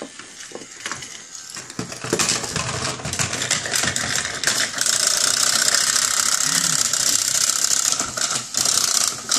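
Battery-powered Chubby Puppies toy puppy running on its plastic playset: a loud, continuous motorised rattle and clatter that starts about two seconds in and grows a little louder about halfway through.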